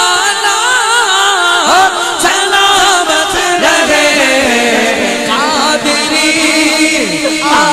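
Naat, an Urdu devotional song in praise of the Prophet, sung in a chant-like style with a wavering, heavily ornamented melody held throughout.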